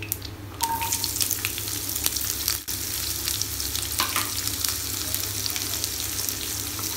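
Sliced onions dropped into hot oil in a nonstick kadai, sizzling steadily as they begin to fry. The sizzle starts about half a second in, as the onions hit the oil.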